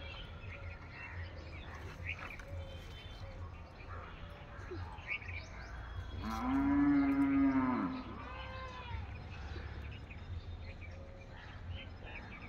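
A cow mooing once about halfway through, a long call of nearly two seconds that holds steady and then drops in pitch at the end, followed by a fainter, shorter call. Small bird chirps come and go.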